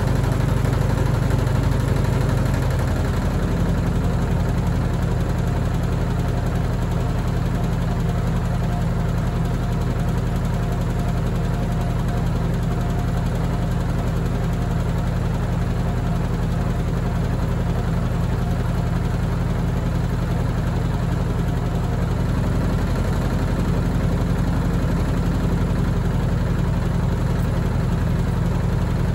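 Washing machine running, its motor giving a steady hum with a vibration; the hum shifts in pitch about two and a half seconds in.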